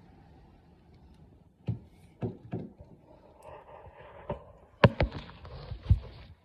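A series of sharp clicks and knocks from handling the trunk release actuator and its cable, loudest in a cluster of knocks near the end.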